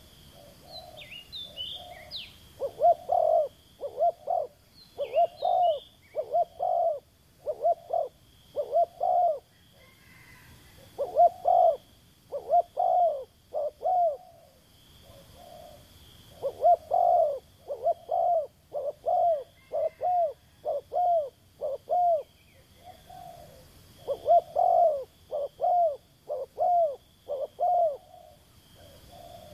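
A dove cooing in runs of short, deep notes, about two a second, with short pauses between the runs. A few high chirps of another bird come in the first few seconds.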